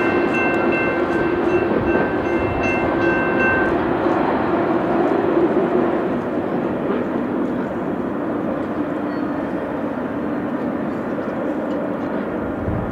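Double-stack intermodal freight train running away into the distance, its rumble easing off about six seconds in. A repeating high ringing tone sounds over it and stops about four seconds in.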